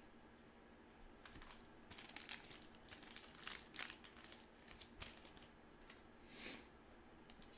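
1983 Fleer baseball cards and a team sticker being handled and shuffled by hand: soft, scattered paper crinkling and rustling, with one brief louder swish near the end.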